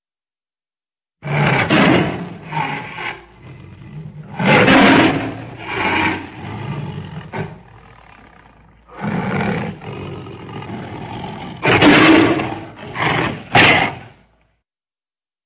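A tiger roaring and growling in a string of harsh calls with short gaps between them, beginning about a second in and stopping a second before the end.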